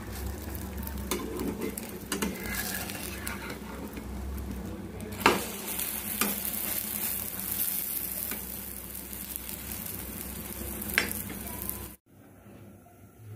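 An omelette sizzling in a frying pan as a steel spatula scrapes and knocks against the pan to fold it; the sizzle grows brighter about five seconds in, and the loudest knock comes there. The frying cuts off abruptly shortly before the end, leaving a faint hum.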